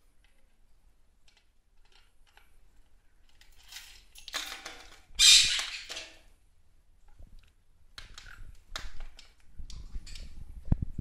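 Clear plastic foraging tumbler being turned by a green-cheeked conure, its load of pellets and clay litter rattling and sliding inside in a loud burst about four to six seconds in, followed by a few sharp clicks of beak on plastic.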